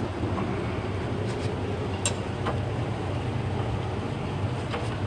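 A few sharp metallic clicks of a wrench working the oil-pan drain plug on a 1950 Chevy 3100 truck, over a steady low machine hum.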